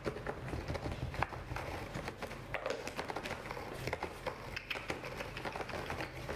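Dried catnip shaken from a jar onto a corrugated cardboard cat scratcher and rubbed in by fingers: a run of irregular light ticks, taps and scratchy rustles.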